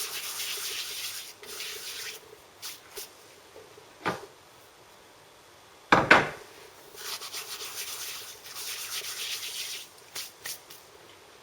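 Dried mint leaves being crushed and rubbed between the palms, a dry rustling in several spells. There is a sharp knock about four seconds in and a louder thump about six seconds in.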